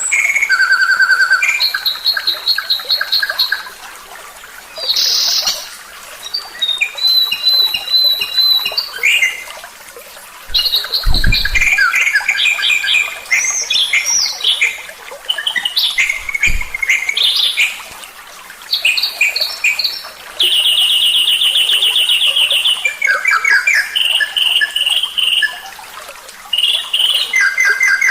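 Masteran recording of songbirds: a chain of different bird songs and calls. Fast trills, rapid runs of repeated high notes and whistles switch in pitch and pattern every second or two. Twice there is a brief low thump.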